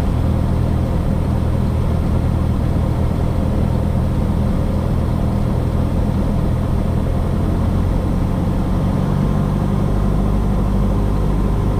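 Cessna 172S's four-cylinder Lycoming engine and propeller droning steadily in the cockpit on the base leg of an approach, the note shifting slightly about nine seconds in.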